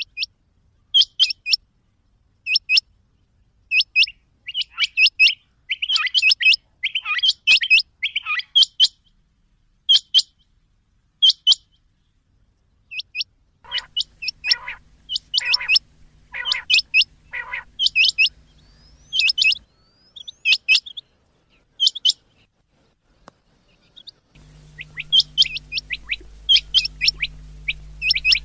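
Rain quail calling: short, sharp, high-pitched notes given in pairs and small clusters at irregular intervals, with a run of four lower notes partway through. A low steady hum sits behind some of the later calls.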